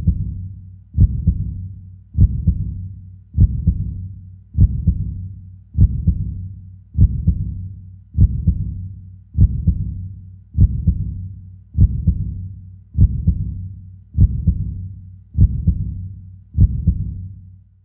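Heartbeat sound effect: slow, even double thumps about once every 1.2 seconds, each fading away, over a steady low hum.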